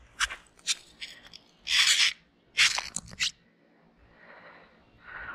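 Rope hauled in hand over hand through textured work gloves, pulling a snagged grapple: a few sharp clicks, then two loud scraping rasps about a second apart, with more clicks after.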